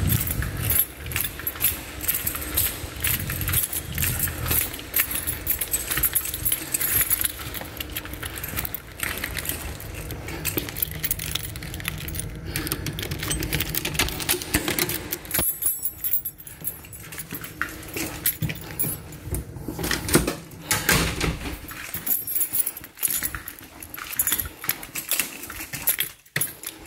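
Keys jangling and rattling in irregular clinks while being carried on the move, with a low rumble underneath until about twenty seconds in.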